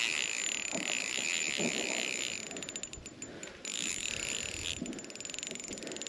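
Spinning reel cranked quickly to bring in a hooked trout, its gears giving a rapid whirring rattle in spurts, with a pause about two and a half seconds in.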